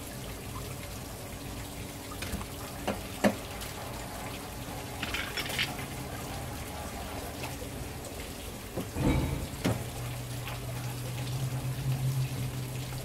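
Handling a large sea bass on a plastic cutting board, with a few sharp knocks over a faint wash of running water. A steady low hum runs underneath and gets louder about ten seconds in.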